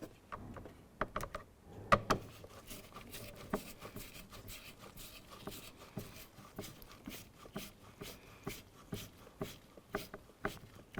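A screwdriver driving a screw into the plastic interior door trim, with many irregular small clicks and taps of tool and plastic; the loudest comes about two seconds in.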